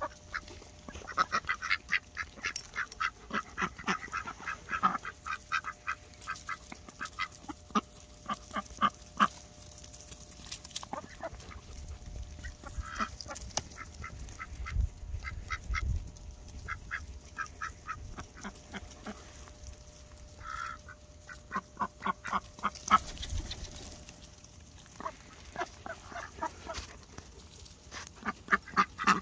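A flock of mallard ducks quacking and pecking while they feed on peas from the grass, in several runs of quick, short sounds.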